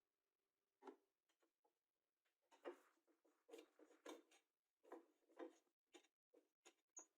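Near silence with faint, irregular small scrapes and taps, more frequent in the second half.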